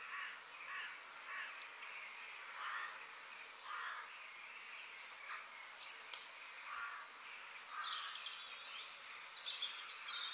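Crows cawing over and over, short calls following one another every half second or so, over a faint outdoor hiss.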